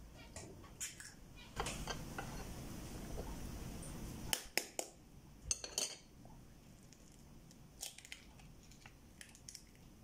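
Kitchen handling sounds while eggs are cracked over a plastic mixing bowl: a couple of seconds of soft rustling, then a cluster of sharp clicks and taps, and a few lighter taps near the end as an egg is broken open.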